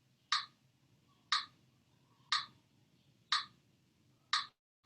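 Steady ticking, five sharp clicks exactly one second apart, like a clock or metronome keeping time.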